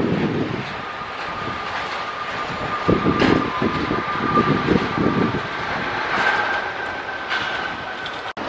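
Jet engines of a Boeing 777 running as it rolls fast along a wet runway: a loud steady rumble with a high whine that moves up to a higher pitch past the middle. Gusty low thumps come through about three seconds in.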